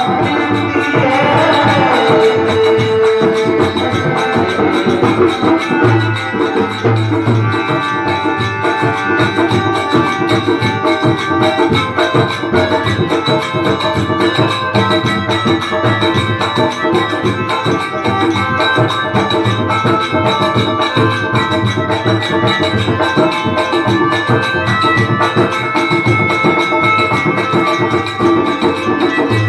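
Instrumental interlude of a Rajasthani folk bhajan: a sung phrase trails off about two seconds in, then the accompaniment plays on with held melody notes over fast hand-drum strokes and jingling rattle-like percussion.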